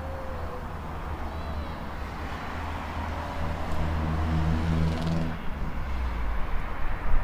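A motor vehicle passing by: engine hum and tyre noise grow louder to a peak about five seconds in, then fall away, over a steady low street rumble.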